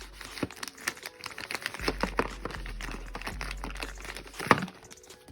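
Packaging being handled: a bag crinkling and rustling in quick irregular crackles and clicks, with one sharp knock about four and a half seconds in.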